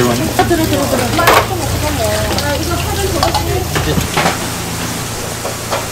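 Stainless steel bowls and trays clinking and scraping as they are handled, several sharp knocks among a steady kitchen noise. Voices chatter in the background, and a low hum drops away about four seconds in.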